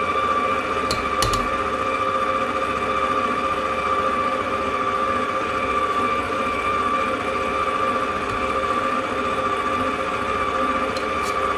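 Electric stand mixer running steadily at a constant pitch, its flat beater creaming butter with cold pudding into a buttercream. A few faint clicks come about a second in and again near the end.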